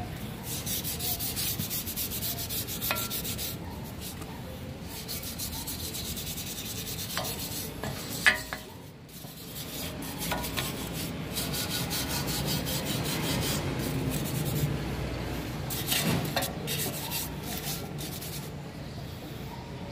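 Hand sanding on metal during prep for powder coating: rough, irregular rubbing strokes with a few sharper scrapes. There is a brief pause about nine seconds in.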